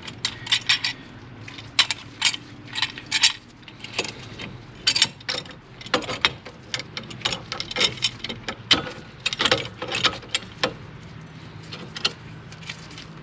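C-clamp being screwed in against a brake pad to push the disc-brake caliper piston back, with irregular sharp metallic clicks and creaks as the clamp screw is turned in short strokes.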